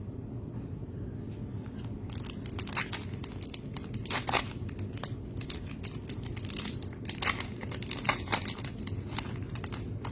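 Trading-card pack wrappers crinkling and tearing, with scattered sharp crackles in a few clusters over a steady low hum.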